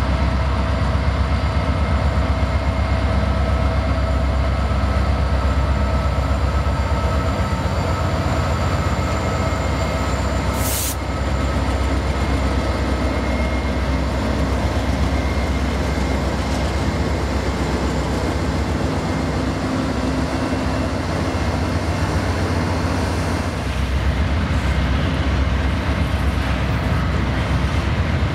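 Norfolk Southern train rolling by: a steady heavy rumble of locomotives and cars, with thin steady tones ringing over it from the wheels. A brief hiss cuts in about eleven seconds in.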